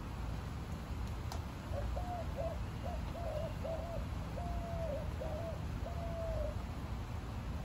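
A bird calling outdoors: a quick series of short, low, even-pitched notes starting about two seconds in and running for some five seconds, over a steady low rumble.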